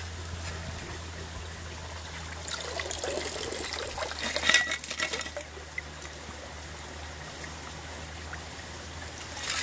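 Shallow stream trickling over stones. From about two and a half to five seconds in, a shovel scrapes and splashes as it lifts a load of wet gravel and stones out of the streambed.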